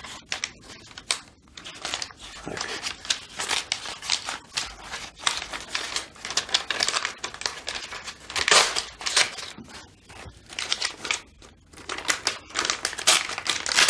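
Paper rustling and a pen scratching on a small notepad as a note is written out and a sheet handled, in irregular scratchy bursts.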